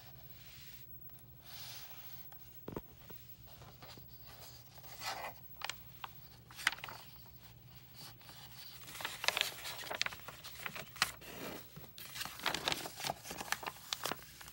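Paper of a picture book rustling and scraping in short, irregular bursts as its pages are handled and turned.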